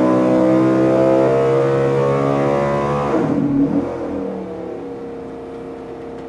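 Ford NASCAR V8 racing engine on an engine dyno making a full-throttle power pull, revs climbing past 8,000 rpm. About three seconds in it comes off the throttle and the revs fall away to a quieter, steady idle.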